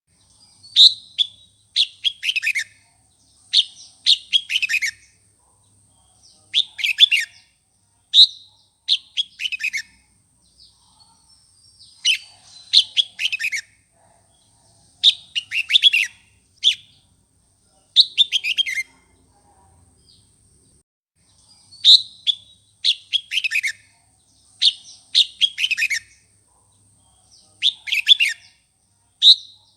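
Red-whiskered bulbul singing short, quick runs of falling whistled notes in groups of two to four phrases, with brief pauses between groups. It is the excited challenge song used to provoke newly caught bulbuls. A faint, steady high whine runs underneath.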